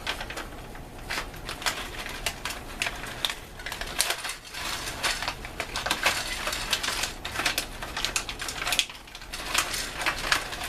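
Crinkling and rustling of MRE plastic food pouches being handled, full of irregular sharp clicks and crackles.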